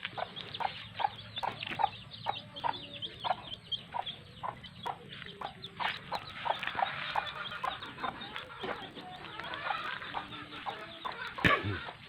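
Chickens clucking and peeping, short calls repeating about twice a second, with a sharp knock near the end.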